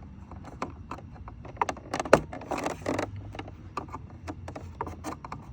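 Plastic clicking and scraping from a stuck plastic retaining tab on a refrigerator's dispenser display housing being pressed and worked loose by hand: a run of sharp clicks, with a busier stretch of rubbing and snapping about two seconds in.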